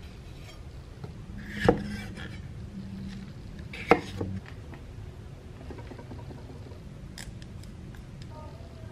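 Chef's knife cutting through a green bell pepper and knocking on a wooden cutting board: two sharp knocks about two seconds apart, then a few lighter clicks.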